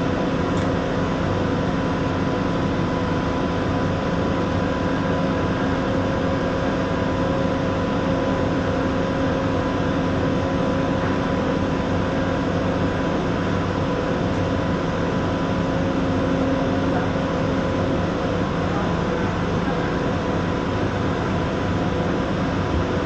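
TIG welder running: a steady, even hiss over a constant hum.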